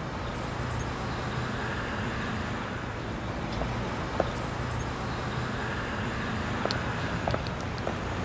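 City street traffic: a steady rumble of cars, with a vehicle or two passing and a few light clicks.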